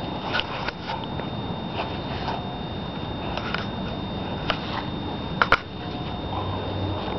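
Steady background hiss with a faint high whine, broken by scattered short clicks and rustles as a German Shepherd puppy moves in the grass right up against the camera. The loudest pair of clicks comes about five and a half seconds in.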